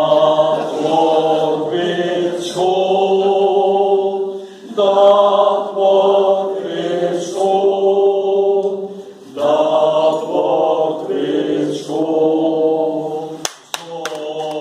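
A small group of adult voices singing a song together from lyric sheets, with one man's voice through a handheld microphone, in phrases of held notes broken by short pauses. Clapping starts near the end.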